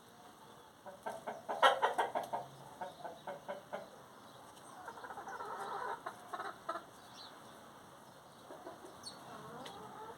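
Chickens clucking in runs of short calls, the loudest burst about two seconds in, another stretch of clucking around five to seven seconds, and fainter calls near the end.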